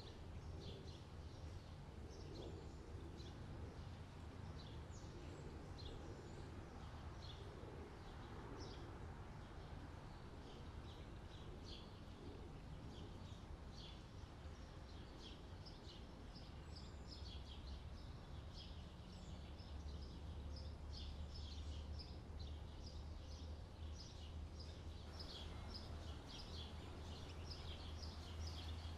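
Faint outdoor park ambience: many short bird chirps throughout, over a low steady rumble.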